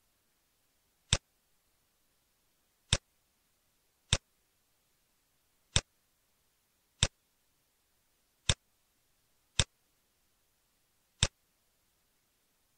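Computer mouse clicks, eight single sharp clicks at uneven intervals of about one to one and a half seconds, with silence between them.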